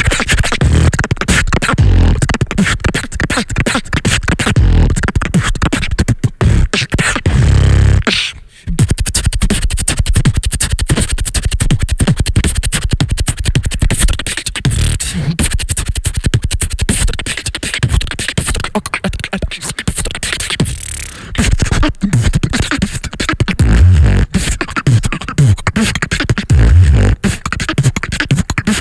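Beatboxing into a handheld microphone, several beatboxers taking turns: rapid percussive mouth clicks and hits over deep bass tones, with a brief break about eight and a half seconds in.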